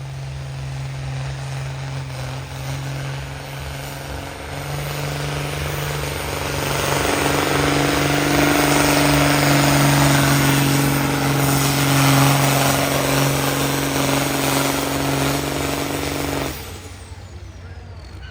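Pulling tractor's engine running at full throttle under heavy load during a pull, with a steady drone that gets louder over the first several seconds. It cuts off suddenly near the end.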